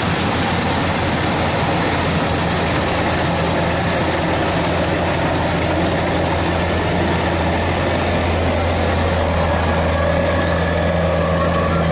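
Kubota DC105X combine harvester running steadily: a constant low diesel hum with an even hiss over it.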